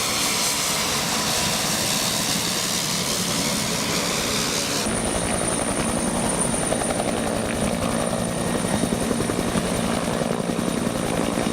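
Helicopter rotor and engine running steadily and loud. The sound changes abruptly about five seconds in, after which a steady rotor pulsing comes through.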